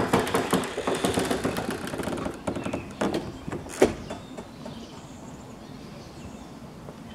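Footsteps on a brick-paved path with handling of a hand-held camera: irregular clicks and knocks for the first few seconds and one sharp knock a little under four seconds in. After that, a steady faint outdoor background.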